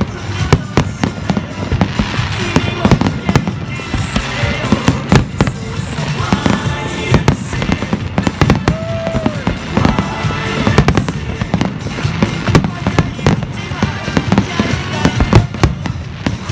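A fireworks finale: many shells bursting in rapid succession, with sharp bangs and crackles several times a second, over loud pop music with singing.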